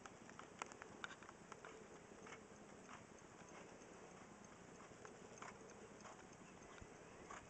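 Faint hoofbeats of a black mare moving at a slow gait on arena sand, soft irregular strikes.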